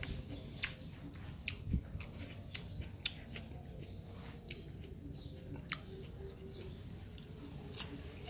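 A person chewing a mouthful of Khmer rice noodles in fish gravy, heard as scattered short clicks and smacks at irregular intervals over a faint steady low hum.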